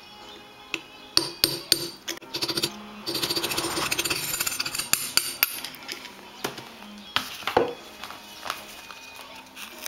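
Steel hand tools clinking and scraping against the mainshaft and gears of a Toyota T50 gearbox as snap-ring pliers work a snap ring: a few sharp clinks, then a couple of seconds of dense metallic rattling about three seconds in, then more scattered clinks and a scrape.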